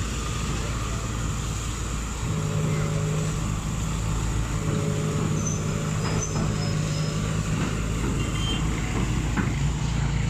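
Floating excavator's diesel engine running steadily under load as the boom lifts the bucket. A steady droning tone comes in about two seconds in, and river water splashes as it pours out of the raised bucket.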